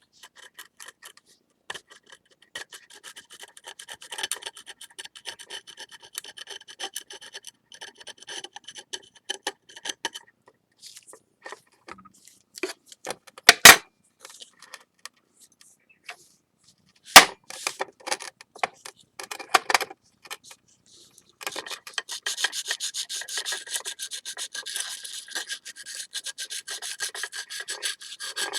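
Wet sandpaper rubbing over a glazed ceramic plate, sanding excess urushi lacquer off a kintsugi repair: short scratchy strokes on and off, turning into steady continuous sanding near the end. Two sharp clicks about halfway through are the loudest sounds.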